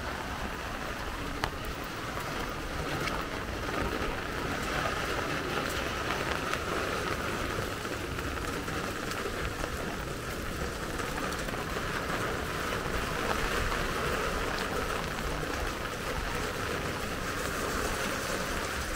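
Steady rain falling, an even hiss throughout, with a single sharp tick about a second and a half in.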